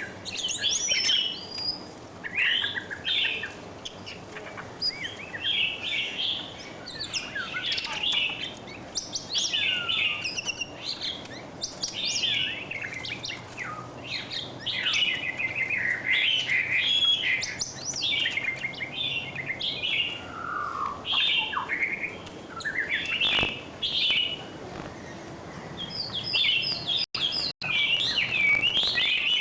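Songbirds chirping and singing continuously, a busy run of short, varied whistled notes and quick glides, with the sound briefly cutting out a couple of times near the end.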